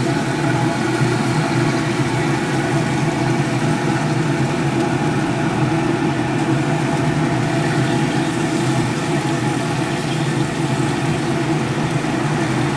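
A steady, unchanging low mechanical hum made of several steady tones, like an idling engine.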